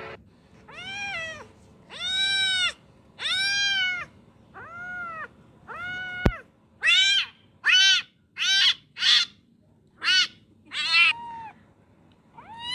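Kitten meowing over and over, about eleven high-pitched calls, each rising then falling in pitch, a kitten's distress cries from the water. A single sharp click sounds about six seconds in.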